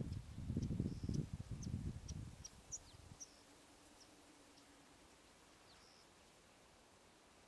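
Gusty wind buffeting the microphone for about three seconds, then dropping away abruptly. Short, high bird chirps come over it throughout, and a faint steady hum sounds in the middle.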